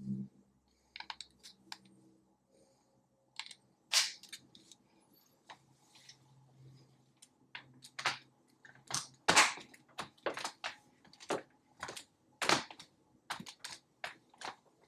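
Irregular sharp plastic clicks, taps and knocks as triangular LED light panels and their connectors are handled and pressed into place, coming thicker and louder in the second half.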